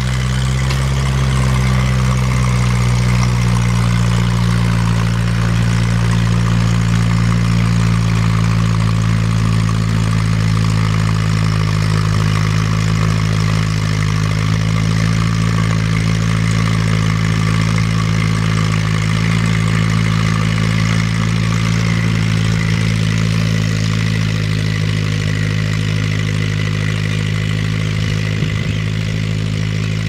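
Ferguson TE-A tractor's four-cylinder petrol engine running steadily under load, pulling a mounted plough through the soil. Its pitch rises a little in the first couple of seconds, and it grows slightly quieter near the end as the tractor draws away.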